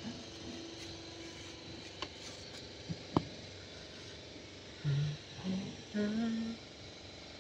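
Hands working on a turbo intake hose and its clamp: a few sharp clicks and taps, the loudest about three seconds in, over a steady background hum. In the second half a person's voice makes a few short humming sounds.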